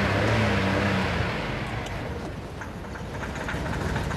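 Car engine running as the sedan moves off, its note strongest in the first second and then easing. The engine's computer control program has just been switched, and the car is sluggish, gaining almost no speed even with the accelerator floored.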